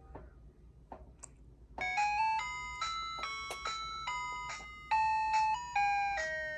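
An electronic chiming jingle like an ice cream truck tune. After a few faint clicks it starts about two seconds in and plays a stepping melody of clear, bell-like notes.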